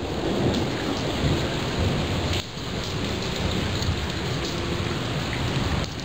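Thunderstorm: steady rain falling with thunder rumbling low underneath.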